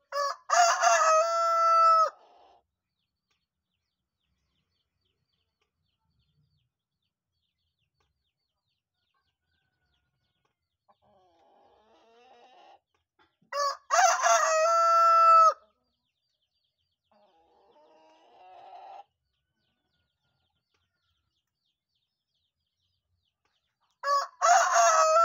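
A rooster crowing three times, roughly ten to twelve seconds apart. Each crow opens in short broken notes and ends in a long held final note. The third crow starts near the end.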